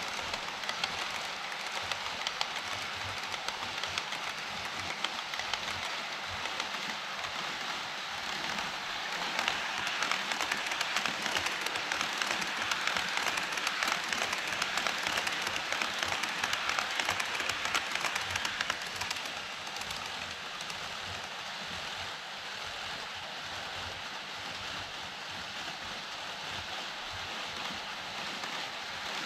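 HO scale model train running along the track, its wheels giving a dense, even patter of fine clicks. It grows louder for about ten seconds as it runs close by, then drops to a quieter run.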